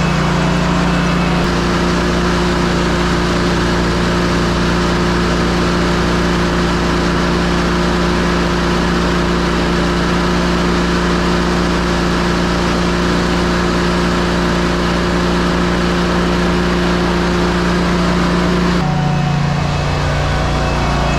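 Ready-mix concrete truck's diesel engine running steadily at raised revs to turn the mixer drum as it discharges the last of the load. The drum is near empty, so it rattles and pops. The engine note shifts lower near the end.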